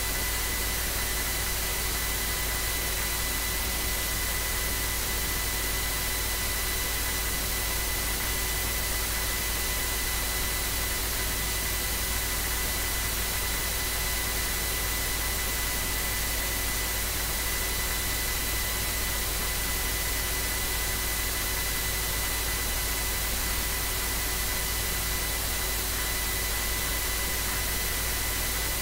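Steady electrical hiss with a faint high whine and a low hum, unchanging throughout, with no other sound in it: the noise of an open recording input with nobody speaking.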